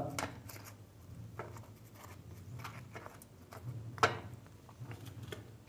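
Faint handling noises: soft rustles and light clicks, with one sharper click about four seconds in.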